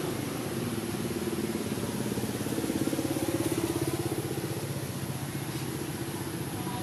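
A motor engine running steadily with a fast, even pulse. It grows a little louder about three seconds in, then eases off.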